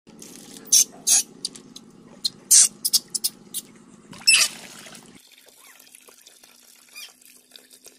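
Water splashing in several short, loud bursts over a low steady hum. After a sudden change about five seconds in, a softer steady pour of water runs into a tub where a baby monkey is being bathed.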